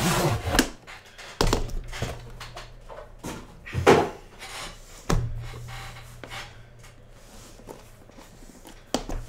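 Aluminium card briefcase being handled: it slides out of its cardboard box and is set down on a table, giving several separate knocks and thunks, the loudest about four seconds in. A sharp click near the end comes as its latches are worked.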